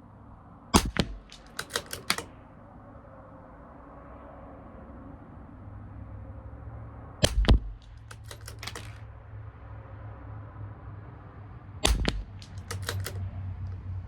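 Three shots from a CZ 457 LRP bolt-action .22 LR rifle firing SK Standard Plus, several seconds apart. Each crack is followed about a second later by a quick run of metallic clicks as the bolt is cycled.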